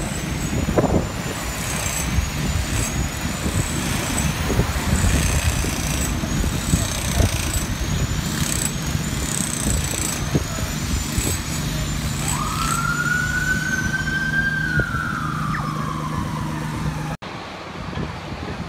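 Ambulance siren over the steady rumble of idling city traffic: a high warbling tone, then about twelve seconds in one wail that rises, holds and slowly falls. Near the end the sound cuts off abruptly to quieter wind and distant traffic.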